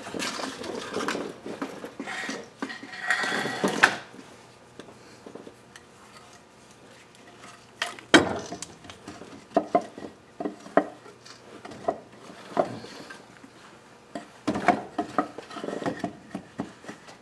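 Hand tools and metal parts clinking and clattering against each other while working on an engine. Dense clatter over the first few seconds, then a quieter spell, a sharp knock about eight seconds in, and scattered clicks and knocks after it.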